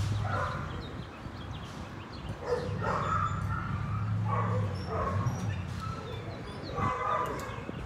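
A dog barking in a run of short barks and yips, repeated every second or so.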